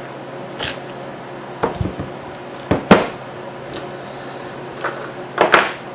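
Steel wedges and body of a quick change tool post clinking and knocking as the wedges are pulled out and set on a wooden bench: a series of sharp metal clicks and knocks, the loudest about three seconds in.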